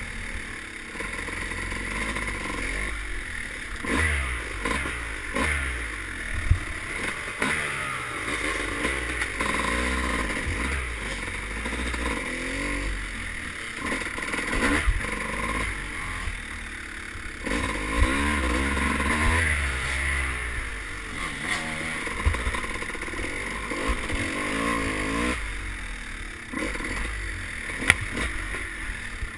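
Dirt bike engine revving up and down again and again as it is ridden along a rough trail, with scattered sharp knocks and rattles from the bike over bumps. It is heard from a helmet-mounted camera.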